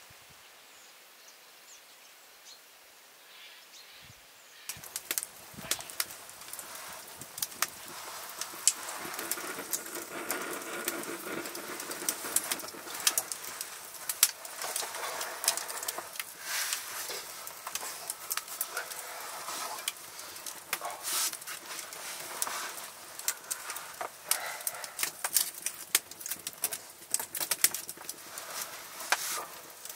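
Wood fire crackling, with many sharp irregular snaps and pops over a soft hiss; it starts about five seconds in after a quiet stretch.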